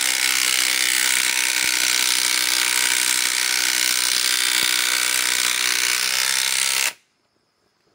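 Cordless RIDGID R8721 right-angle impact wrench hammering steadily as it drives a 5-inch power lag screw into wood, stopping suddenly about seven seconds in. The lag goes in slowly, which the owner blames on the weak 4 Ah battery.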